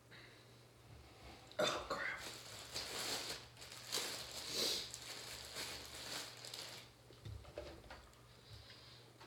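A plastic or paper bag rustling and crinkling as it is handled, for about five seconds, starting a second and a half in. Then a few faint gulps as milk is drunk from a plastic jug.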